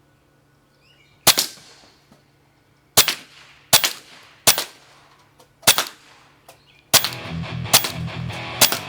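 Benjamin Marauder .22 air rifle firing a rapid string of sharp shots at cans, roughly a second apart. From about seven seconds in, electric-guitar music comes in under further shots.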